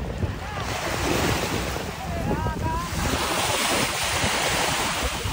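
Small sea waves breaking and washing over the shallows at the shore, with wind buffeting the microphone. The wash grows louder about three seconds in as a wave breaks close by.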